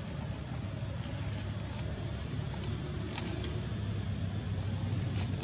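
A steady low background rumble, with a few faint crackles of dry leaves being stepped on, about three seconds in and again near the end.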